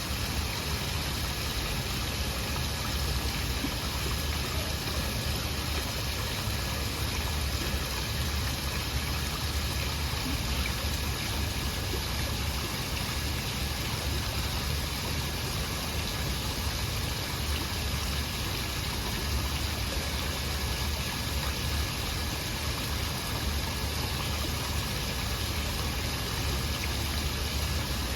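Waterfall: a steady, unbroken rush of falling water with a deep low rumble underneath.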